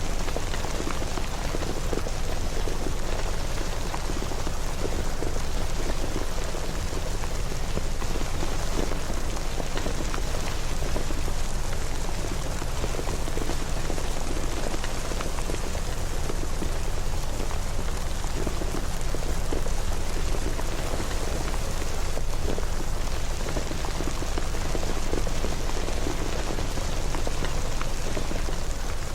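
Steady rain falling, an even unbroken hiss with a deep rumble beneath it and no distinct events.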